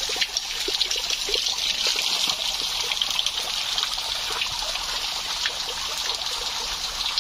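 Running water trickling and splashing steadily, like a small stream or water dripping off a bank.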